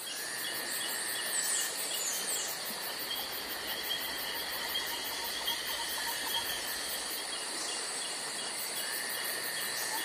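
Steady chorus of chirping insects, with a rapid repeating chirp and a few short falling whistles about two seconds in.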